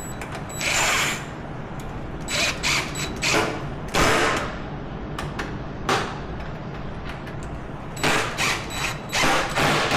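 Hand ratchet wrench tightening bolts on an ATV, clicking in short runs of strokes with pauses between, busiest near the end.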